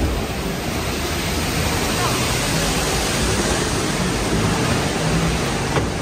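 Steady rushing noise from a moving log flume ride, without a break and with no distinct splash or impact.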